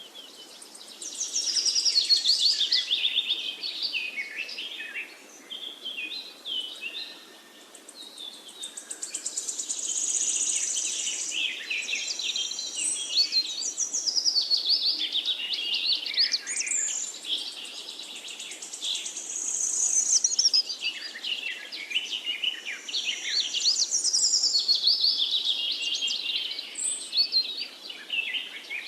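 Several songbirds singing at once: dense, rapid chirps and trills that swell and fade every few seconds, over a faint steady background hiss.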